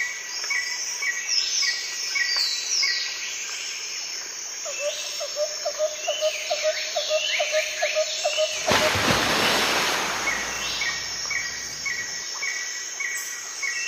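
Birds chirping and calling in quick repeated notes and short falling whistles, as in a nature soundscape. About two-thirds of the way through, a stretch of loud even hiss rises over the birds for a few seconds.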